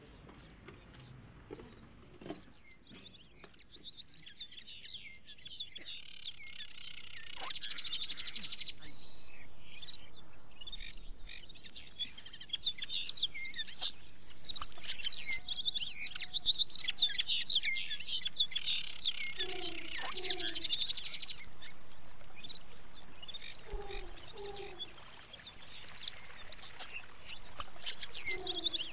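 A chorus of small birds chirping and twittering, faint at first and building over the first several seconds to a dense, high twitter. In the second half a lower two-note call repeats three times.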